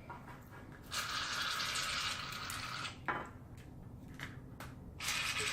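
Aerosol can of shaving cream spraying: a steady hiss of about two seconds, then a second hiss starting near the end.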